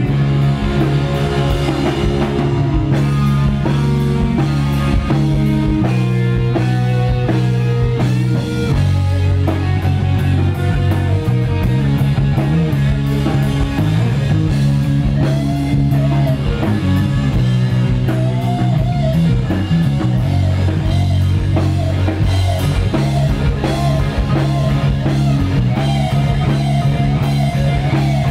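Live rock band playing an instrumental stretch: electric bass and drum kit under chords, with a lead electric guitar playing repeated string bends through the second half.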